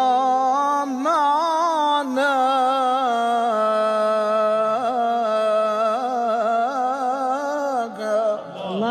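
A man singing an Arabic nasheed alone and unaccompanied, drawing out long ornamented notes that waver in pitch, with a short breath near the end before the next phrase.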